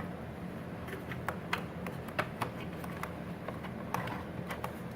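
Irregular light clicks and scratches, about ten in five seconds: a young budgie shifting about inside a cardboard pet-store carrier box.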